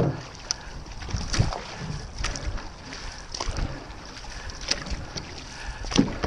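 Paddles of a six-person outrigger canoe dipping and pulling through the water, a splash with each stroke roughly once a second, over steady water noise and wind on the microphone.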